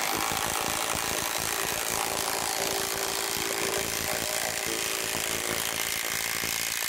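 Compact impact wrench hammering continuously as it drives a concrete screw bolt, a steady rapid rattle of impacts.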